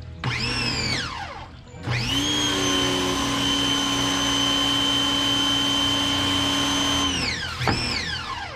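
Electric pressure washer motor (1600 PSI) starting and stopping as the spray is triggered. A short whine rises and falls, then the motor runs for about five seconds at a steady high whine and winds down. Near the end there is another brief burst.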